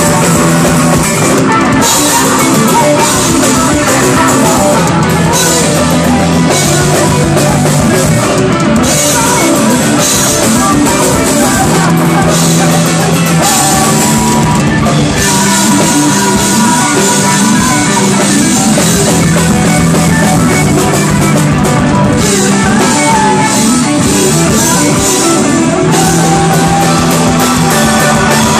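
A post-hardcore band playing live and loud: electric guitars and bass over a drum kit.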